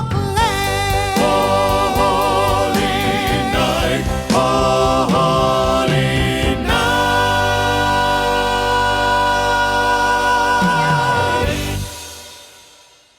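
A song with singing voices over instrumental backing, ending on long held notes and fading out near the end.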